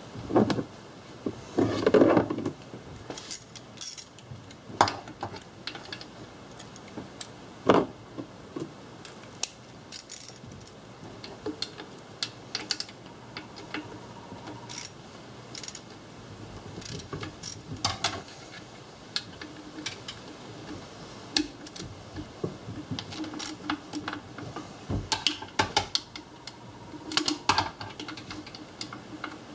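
A socket ratchet wrench clicking in short runs while loosening the water pump bolts, with tools and sockets clinking against metal now and then. The louder clatters come about two seconds in, near eight seconds and near the end.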